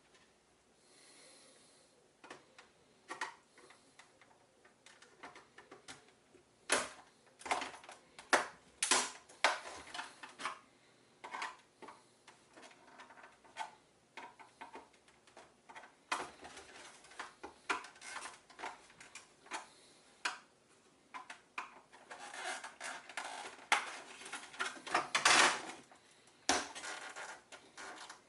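Hammer knocking on a plastic external hard-drive housing to break it open: irregular sharp knocks and clatter, coming in quick flurries, the loudest near the end.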